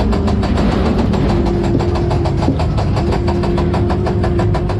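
Fairground ghost-train car climbing the lift hill: a rapid, even clatter, about ten clicks a second, over a steady machinery hum.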